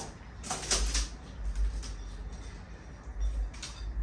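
Light kitchen handling sounds: a few soft knocks and rustles from cookware being moved, a cluster within the first second and a few more around three seconds in.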